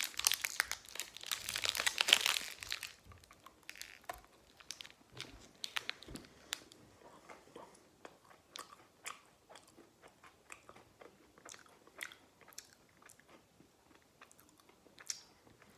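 The plastic wrapper of an Oreo ice cream stick rustles loudly for the first two to three seconds, then come bites into the hard chocolate coating and chewing, with many short sharp crunches spread irregularly through the rest.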